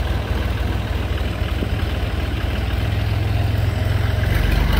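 Tractor engine running steadily with a low, fast-pulsing rumble, growing louder near the end.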